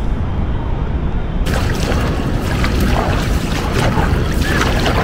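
Wind buffeting the microphone with a low rumble. About one and a half seconds in it gives way to water splashing and sloshing in a swimming pool as a swimmer does front crawl close by.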